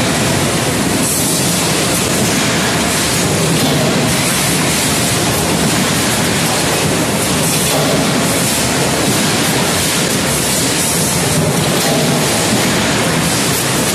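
Loud, steady noise of machinery on a forging shop floor, an even rushing din with no separate hammer blows standing out.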